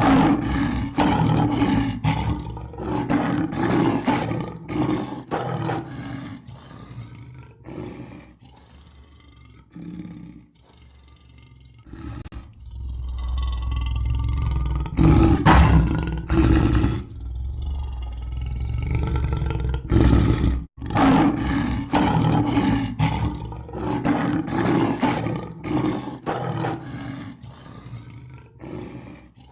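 Lion roaring: runs of short grunting roars, a little under two a second, with a long, deep, drawn-out roar in the middle.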